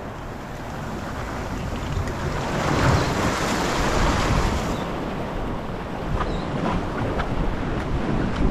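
Surf washing and foaming among jetty boulders, swelling about three seconds in, with wind buffeting the microphone as a low rumble.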